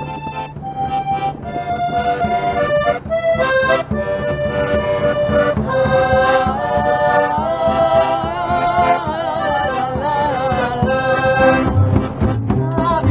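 Diatonic button accordion playing a lively folk melody over a steady rhythmic accompaniment. About twelve seconds in, deeper thumps of drum and bass come in.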